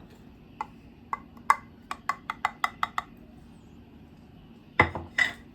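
About ten quick, light taps of kitchenware against a mixing bowl with a slight ring, speeding up as they go, as powdered sugar is knocked into the bowl; then one louder knock near the end.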